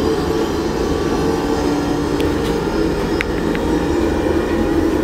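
Diesel railcar running, heard from inside its toilet compartment: a steady rumble with a constant low hum, and a few faint light clicks in the middle.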